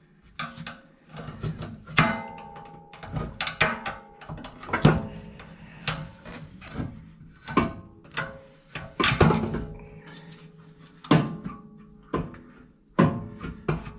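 Screwdriver knocking and levering against the steel stock muffler and hanger bracket of a Honda Talon 1000R while a rubber exhaust hanger is pried off. The clanks come irregularly, about a dozen of them, and each rings briefly. The loudest are about five and nine seconds in.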